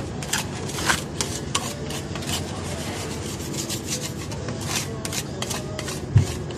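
Metal scraper rasping across a frozen ice-cream pan, scraping and chopping frozen ice cream mix in quick irregular strokes, several a second. A single dull thump about six seconds in.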